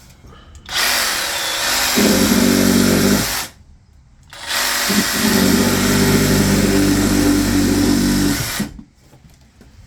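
Reciprocating saw (Sawzall) run twice, for about three and then about four seconds, cutting through the plumbing hoses under a cabinet.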